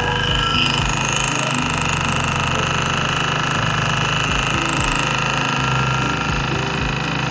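Small open-frame petrol generator running steadily: an even engine drone with a high whine over it that does not change.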